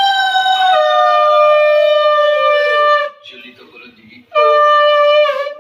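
Conch shell (shankha) blown in worship: one long steady blast that steps down in pitch and sags as it ends about three seconds in, then, after a short breath, a second shorter blast that dips in pitch as it cuts off.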